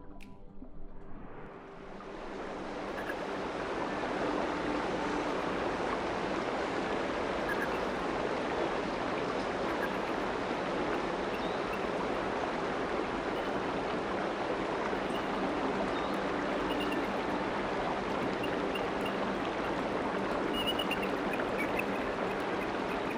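A fast, steep mountain river rushing over rocks: a steady wash of water that fades up over the first couple of seconds, then holds even.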